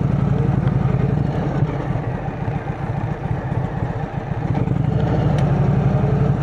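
Indian Chieftain's Thunder Stroke V-twin engine, through a Freedom Performance exhaust, running at low speed. The engine note eases off and turns choppier for a few seconds in the middle, then steadies again.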